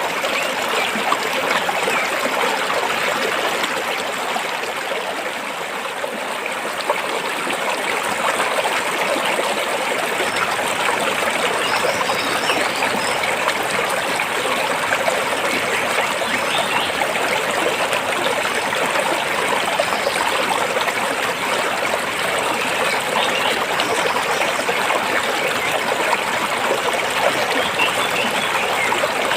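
Stream water flowing over and between rocks: a steady, even rushing with trickling.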